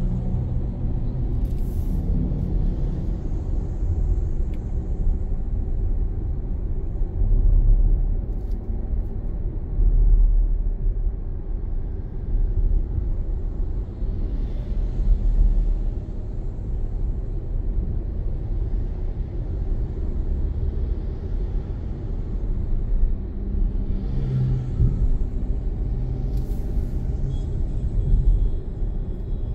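Car driving on a city road: a steady low rumble of engine and tyre noise, with a few brief swells and faint hisses.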